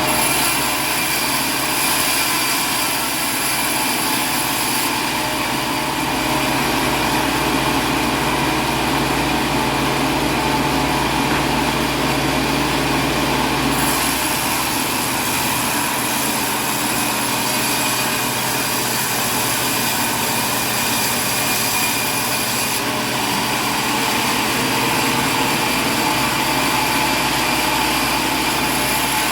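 Steady, loud engine noise with several held tones over a constant hiss. The high hiss changes level a few times, and the deep rumble fades about halfway through.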